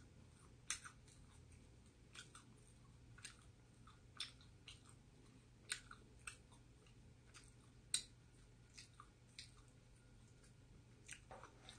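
Faint close-up chewing: irregular soft clicks and small crunches of a mouth eating, a dozen or so spread over the stretch.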